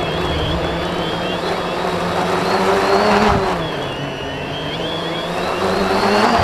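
DJI Phantom 1 quadcopter's motors and propellers whining in flight, the pitch wavering up and down as the throttle changes, with a swell about three seconds in.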